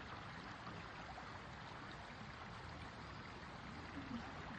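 Steady rushing of water, an even hiss with a few faint ticks.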